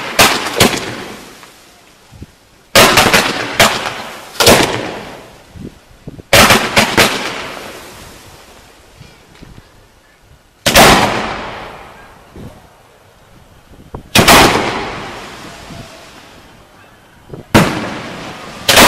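Display firework shells going off close by: loud sharp bangs, some single and some in quick clusters of two or three, every one to four seconds, each echoing away.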